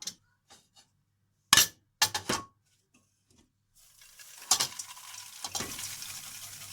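A few sharp clinks of kitchenware, then a steady dry rustling as popped popcorn is scooped out of the pot into a plate.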